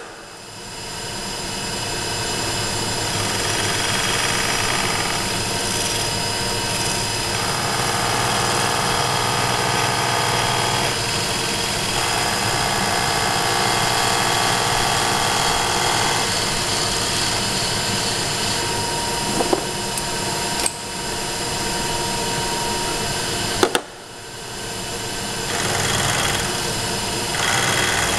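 Milling machine spindle running at about 1,000 RPM while a solid-carbide fine-pitch roughing (corn cob) end mill takes light cuts along a metal workpiece. The cutting noise rises and falls in stretches of a few seconds as the table feeds, with a few sharp clicks. Twice the sound drops suddenly and builds back up.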